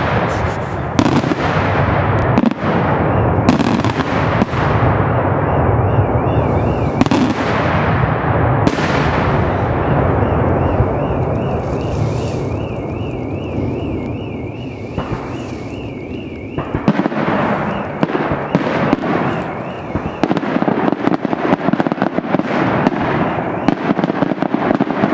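Daytime aerial fireworks display: a dense, continuous rattle of shell bursts and firecracker reports. A warbling whistle runs through the middle part. After about seventeen seconds the low rumble thins and separate sharp bangs stand out.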